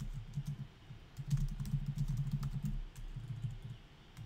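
Typing on a computer keyboard: quick runs of key clicks with low thuds, a short lull about a second in, then a longer run.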